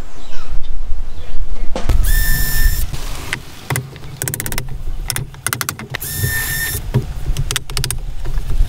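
Power drill run in short bursts on a woodworking job, a steady motor whine about two seconds in and again about six seconds in. Runs of rapid clicking come between the bursts, with loud knocks and clatter in the first two seconds.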